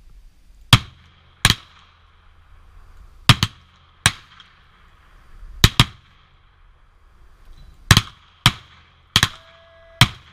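Revolver shots fired at targets one after another: about eleven sharp cracks over ten seconds, some coming in quick pairs.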